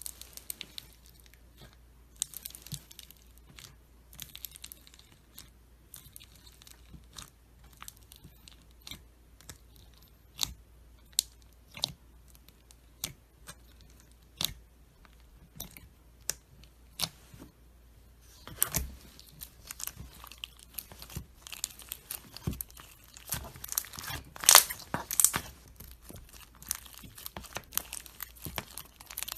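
Slime being squeezed and poked by hand, giving scattered sharp crackling pops and clicks that come thicker and louder from about two-thirds of the way in.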